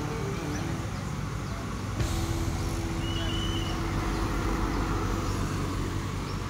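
Road traffic with a large vehicle's engine running as it passes; about two seconds in a steady tone starts and holds for about three seconds.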